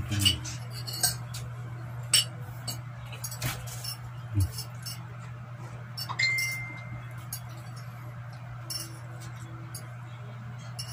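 Metal fork clinking and tapping on ceramic plates during a meal: a scattered series of short sharp clinks, one about six seconds in ringing on for about a second. A steady low hum runs underneath.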